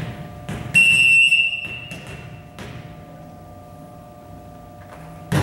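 Referee's whistle blown once: a single steady, high, shrill tone lasting about a second, then trailing off. A few thuds come around it, with a louder thud near the end.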